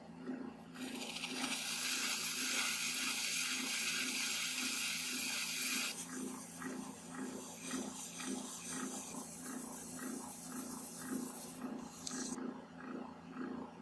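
Metal lathe running with a steady hum and a regular throb while a spinning brass part is sanded. A loud sandpaper hiss starts about a second in, gets quieter about six seconds in when a second sheet of sandpaper is applied, and stops about twelve seconds in.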